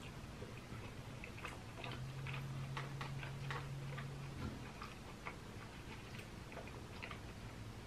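A man eating close to the microphone: chewing with irregular wet mouth clicks and spoon clicks. A low steady hum runs for about two and a half seconds in the middle.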